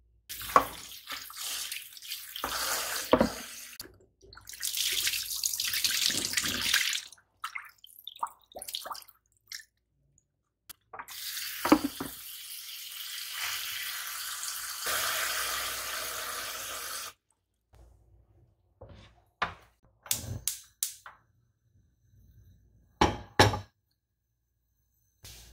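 Kitchen tap running into a metal saucepan of cubed potatoes as they are rinsed, in several runs with the longest lasting about six seconds. Sharp knocks and clatters of the pan come in between the runs and a few times near the end.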